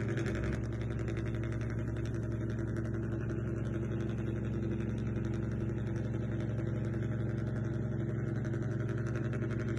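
Steady engine drone of a remote-control boat, running evenly with a fine, rapid pulse.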